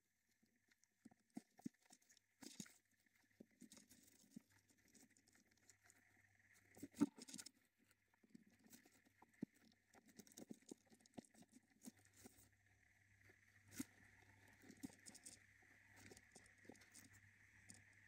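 Faint, irregular scratching, tapping and rustling of a budgerigar shuffling and digging in its nest box among shredded paper bedding, with one louder knock near the middle.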